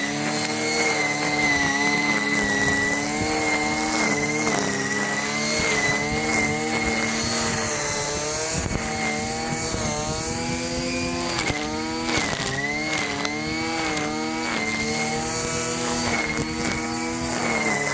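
Small gas engine running under load, its pitch dipping and recovering over and over as it bogs down and picks back up.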